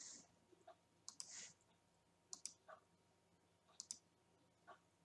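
Faint computer mouse button clicks, each a quick double tick, about four times, with a few softer ticks between them.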